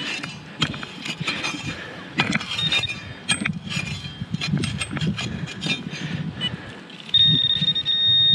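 Metal digging shovel chopping and scraping into hard, dry soil in a run of sharp, irregular clinks and thuds. About seven seconds in, a pinpointer probe (a Garrett Pro-Pointer) pushed into the hole gives a loud, steady high beep lasting over a second, signalling that the metal target is still in the hole.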